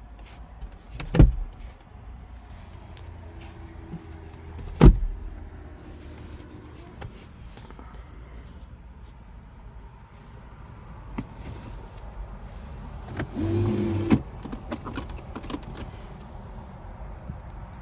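Two sharp knocks on the car, then about a second of a small electric motor whirring steadily in the car's body and stopping with a click.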